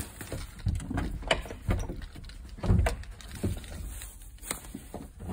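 Irregular thuds and knocks with a few sharp clicks, the loudest thud a little past the middle: footsteps and handling noise while moving into an aluminum cargo box.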